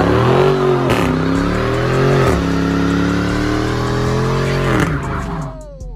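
Car engine revving hard during a burnout, its tyres spinning and squealing. The revs climb and dip twice, hold high for a couple of seconds, then fall away about five seconds in.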